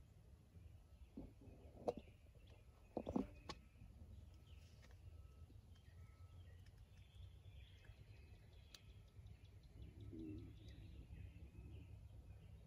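Quiet spring woodland: faint, scattered songbird chirps over a low rumble, with a few sharp knocks about two and three seconds in.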